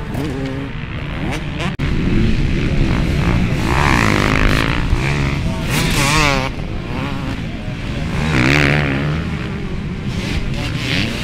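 Motocross bike engines racing on a dirt track, revving hard with the pitch rising and falling over and over as riders work the throttle through the jumps, with several bikes passing one after another. The sound drops out for an instant about two seconds in.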